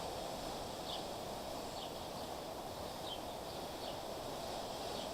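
Steady outdoor background noise, with faint short high chirps about once a second from small birds or insects.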